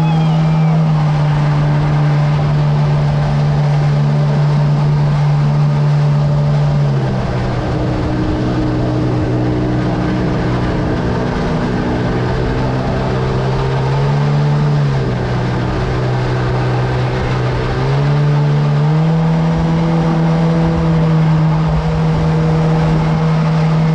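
The motor of an aluminium river boat running under way. Its pitch steps down about seven seconds in, dips again around fifteen seconds, and rises back just before nineteen seconds.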